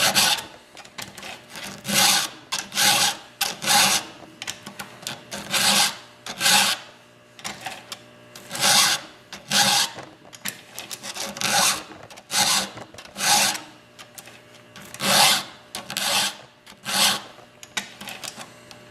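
Hand file rasping across chainsaw chain cutter teeth in even back-and-forth strokes, about two a second, in short bunches with brief pauses between teeth.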